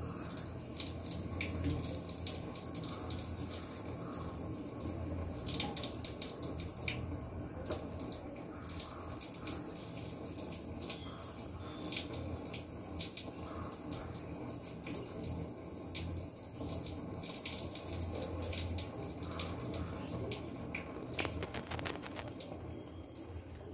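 Hot starch water pouring and trickling out of a tilted metal rice pot as freshly cooked rice is drained, a steady flow with small irregular splashes.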